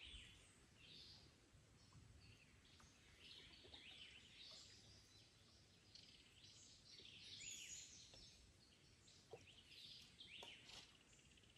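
Faint woodland birdsong: several small birds chirping and calling in short, repeated phrases over a quiet background.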